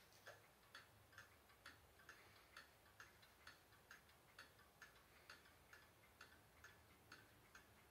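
Westerstrands cartel wall clock ticking steadily and faintly, about two ticks a second.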